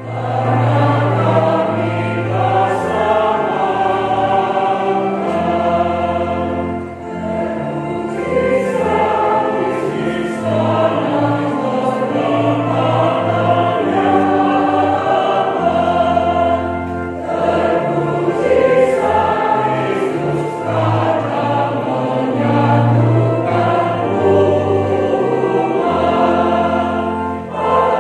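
Church choir singing a hymn with keyboard accompaniment, in long sustained phrases over a steady bass, the sound dipping briefly between phrases twice.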